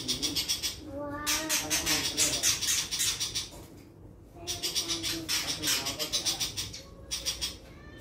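Caged long-tailed shrike (pentet) singing a loud, harsh, rapid chatter with wavering lower notes underneath, in two long bursts and a short one near the end; its cat-like and monkey-like mimicry is what the bird is kept for.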